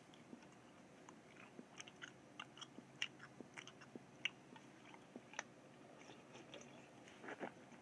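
Faint, close mouth sounds of chewing a wad of paper tissue: a string of small, irregular wet clicks. Near the end come a few quick gulps as he drinks from a can.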